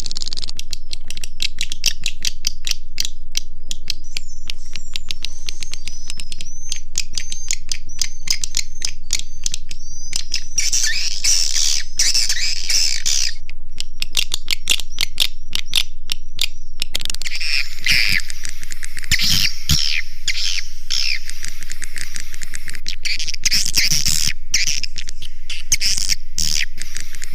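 Swiftlet lure call: edible-nest swiftlet chirping and twittering over a rapid, uneven train of dry clicks, loud and steady. It is played through a bird house's speakers to draw swiftlets in to nest.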